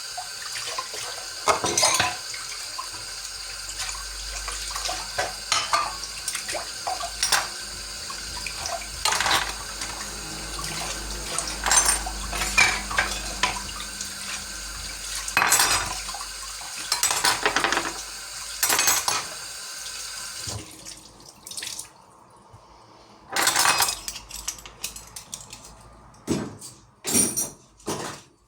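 Water running from a tap while dishes and cutlery clink and clatter in a sink. The water cuts off suddenly about two-thirds of the way through, followed by several sharp knocks and clinks of dishes being handled.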